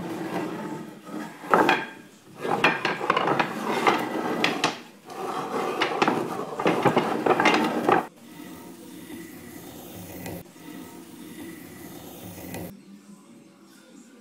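Wooden strips clattering and knocking as they are set down and shuffled against one another on a plywood table, many quick wooden clicks for about eight seconds. Then a quieter, steady noise follows for about four seconds.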